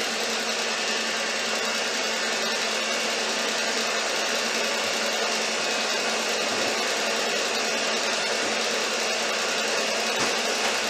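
Electric stand mixer running at a steady speed with an even motor whir and a low steady hum.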